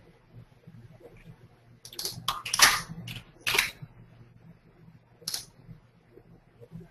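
Computer keyboard keystrokes: a quick cluster of several clicks about two to three and a half seconds in and a single one a few seconds later, over a faint steady low hum.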